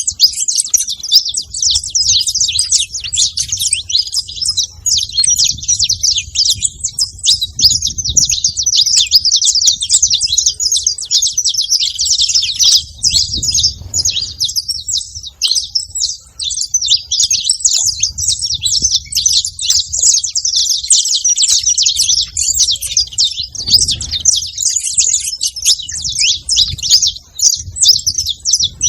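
Saffron finches chirping at a bait spot: a dense, unbroken stream of quick, high chirps.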